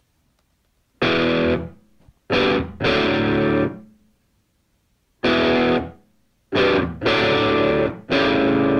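Distorted electric guitar playing loud chords in short, stop-start stabs with silent gaps between. After a silent first second, a chord sounds, then two more chords follow in quick succession. After another pause, a run of chords begins about five seconds in.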